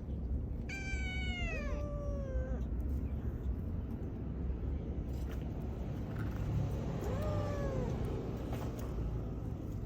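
Stray cat meowing twice: a long, drawn-out meow falling in pitch about a second in, then a shorter meow around seven seconds in, over a steady low background rumble.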